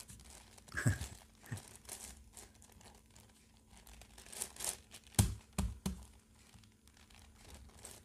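Plastic layers of a 10x10x10 Rubik's cube clicking and rattling as they are turned by hand, with a sharp clack about a second in and a cluster of clacks about five seconds in.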